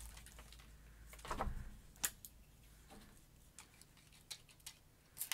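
Pump-mist bottle of Dylusions Shimmer Spray being sprayed: a louder puff about a second in, then a run of short, faint clicks and puffs.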